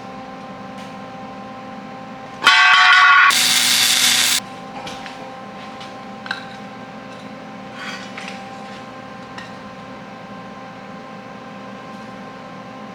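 A MIG welder laying a short tack weld, about two seconds long: a harsh buzz that turns into a dense crackling hiss and cuts off suddenly. A few light clicks follow over a steady hum.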